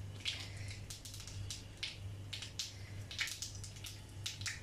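Mustard seeds popping and crackling in hot coconut oil in a frying pan: irregular sharp pops over a faint sizzle.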